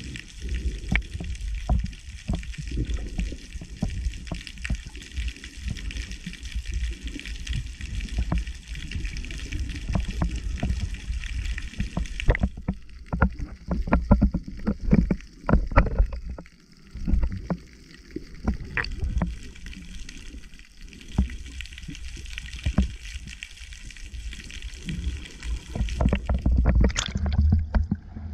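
Muffled underwater water noise: a low rumble with many short soft knocks and thuds. Near the end it turns to splashing as the camera comes up at the surface.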